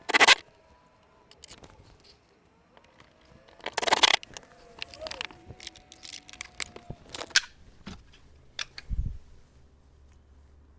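Short scrapes and clicks from hand work on a car's interior door panel, as screws are run in and trim plates fitted. The loudest scrapes come just after the start and about four seconds in, another near seven seconds, with a low thump near the end.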